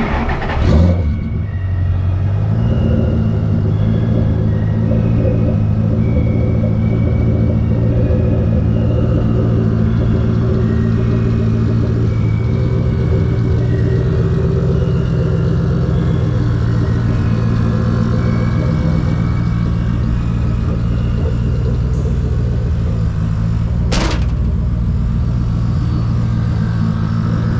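A pair of Viair 485C 12-volt air compressors switching on with a short loud burst about a second in, then running steadily with a low buzzing hum as they fill the air-suspension tank on a test of the new install. Two sharp clicks come near the end.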